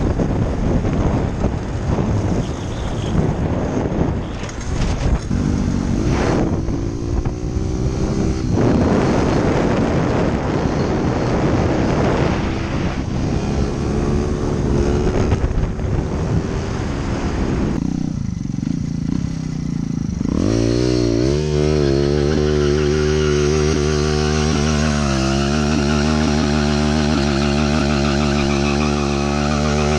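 A small engine running with rushing wind noise on the microphone. About twenty seconds in, it gives way to a steady, even engine tone held close up with a slight wobble, like an engine idling.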